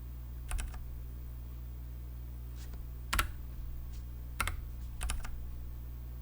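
A few separate keystrokes on a NuPhy Air60 mechanical keyboard with Gateron red switches: about five presses spread out, some with a doubled click, the loudest a little past the middle, over a steady low hum.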